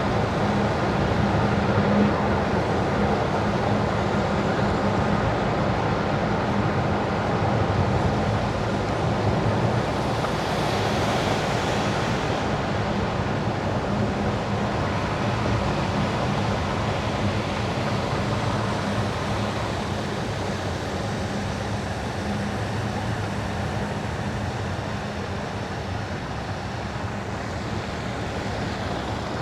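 Car driving on wet winter asphalt: steady tyre hiss and road noise with a low hum. A louder hiss swells for a couple of seconds about ten seconds in.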